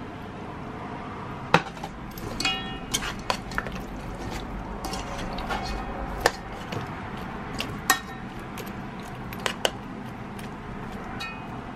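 Metal spoon stirring and tossing sauced chicken feet in a pressure cooker's metal inner pot, clinking against the pot's side a dozen or so times at irregular moments, some strikes ringing briefly, over a steady low hum.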